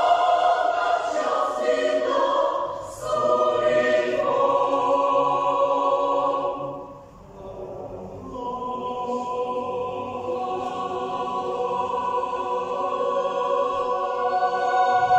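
Mixed choir of women's and men's voices singing sustained chords. The sound drops away briefly about seven seconds in, between phrases, then the singing resumes and builds toward the end.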